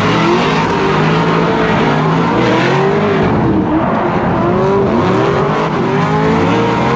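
Drift car's engine heard from inside the cabin, revving up and down over and over, about once a second, over a steady rush of tyre and wind noise.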